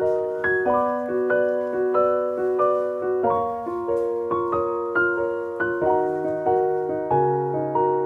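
Background piano music: single notes struck about twice a second, each ringing and fading, over held lower notes.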